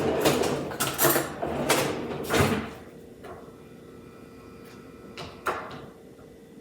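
Plastic instant-ramen packet rustling and crinkling as it is handled and opened for about two and a half seconds, followed by a few light clicks and knocks.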